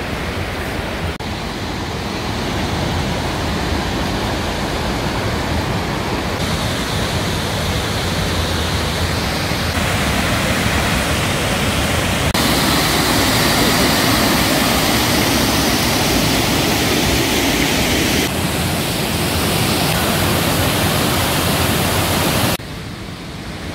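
Rushing water of a fast river and a broad waterfall spilling over a weir: a steady, loud hiss that grows louder as the waterfall comes close. Its tone changes abruptly several times.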